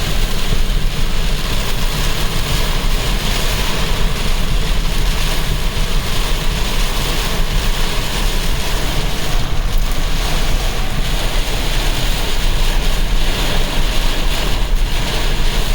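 Loud, steady rush of storm wind around a moving car, mixed with the car's road noise.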